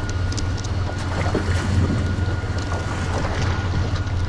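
Boat engine running steadily with a low drone, with wind buffeting the microphone.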